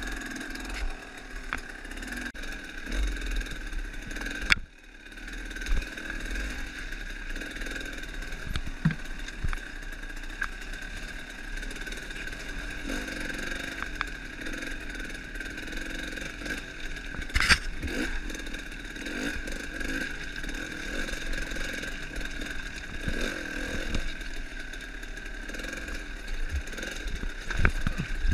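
Trail motorcycle engine running at low revs, rising and falling with the throttle as the bike is ridden slowly over rough ground. Occasional sharp knocks and clatter, the loudest about seventeen seconds in, come from the bike bumping over rocks and branches.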